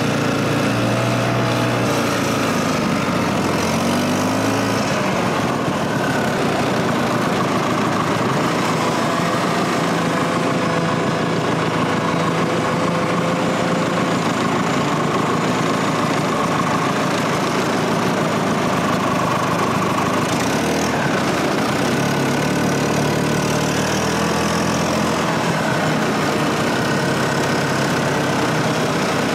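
Snowmobile engine running under load while towing a loaded log sleigh, its pitch rising and falling several times with the throttle.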